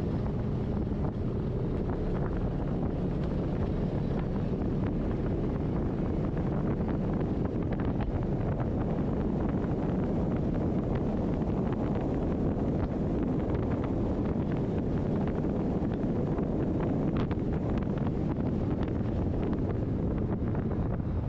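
Polaris RZR side-by-side driving steadily along a gravel road: engine running and tyres on gravel under heavy wind noise on the microphone.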